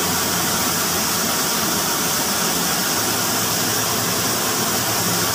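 Water rushing steadily into a concrete cistern tank through the inlet pipe, an even hiss, with a motor's steady low hum underneath.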